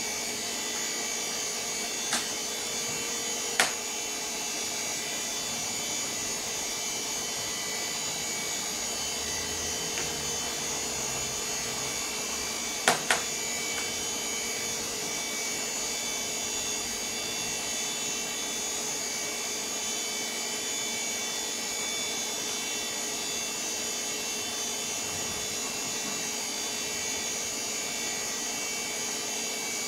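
VAX 4000-100A minicomputer running: a steady whir of its cooling fans and spinning RF36 disk drive, with several pitched whines held on top. A few short sharp clicks stand out, about two and three and a half seconds in and a quick pair near the middle.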